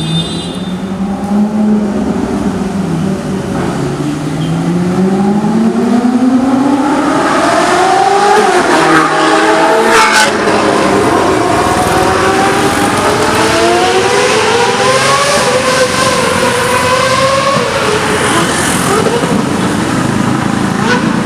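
Car engines accelerating hard on the street, their pitch climbing and dropping through the gears, with more than one engine note overlapping.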